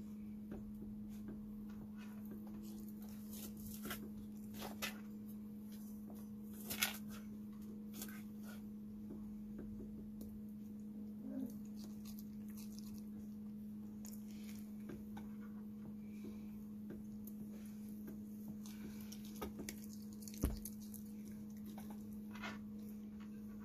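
Scattered soft clicks and taps from a red fox moving about right next to the phone, with two sharper knocks about seven and twenty seconds in, over a steady low hum.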